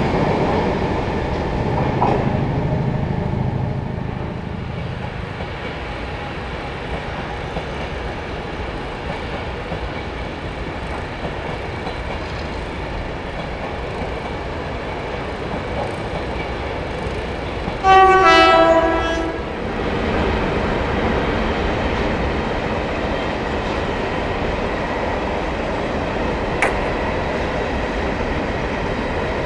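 Trains running through a station: a Virgin Pendolino electric train rushes past the platform, its rumble easing off over the first few seconds, then a steady rumble of wheels on rail goes on. About midway a train's horn sounds one two-note blast, high then low, lasting about a second and a half, the loudest sound here. Near the end a freight train of wagons is rolling past.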